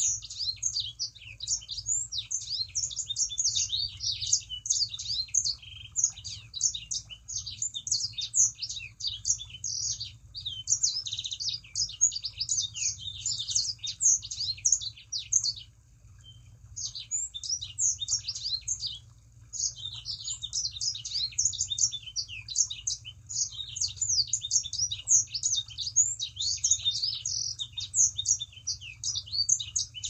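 Songbird known to Indonesian bird keepers as the sanger, singing in full voice (gacor): a rapid, unbroken run of high chirps and trills, pausing briefly about 16 and 19 seconds in. A faint steady hum lies underneath.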